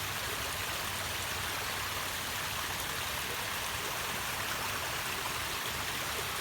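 Waterfall rushing and splashing, a steady even hiss of falling water.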